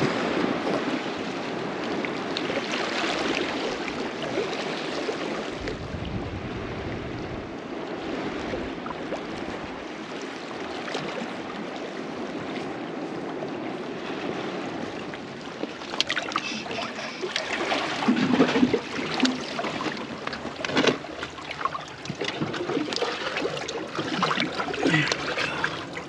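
Sea water lapping and sloshing against shoreline rocks, with wind buffeting the microphone in a low rumble for a few seconds early on. From about halfway through, closer, choppier splashing and trickling of water among the rocks.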